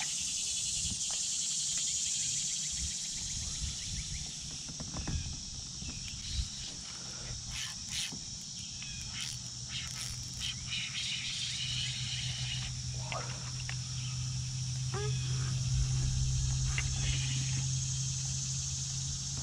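Steady high-pitched drone of a summer insect chorus, with a few scattered clicks. A low steady hum joins a little past halfway.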